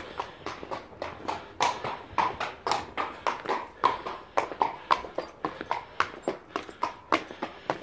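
Horses' hooves clip-clopping in a steady rhythm, several sharp strikes a second.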